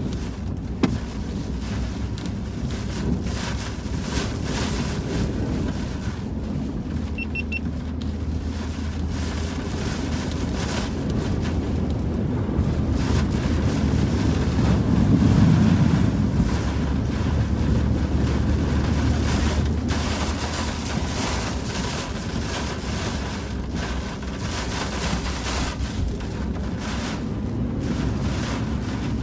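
Wind and heavy rain beating on a car being driven through a hurricane, heard from inside the cabin over a steady low road and engine rumble. The noise swells about halfway through.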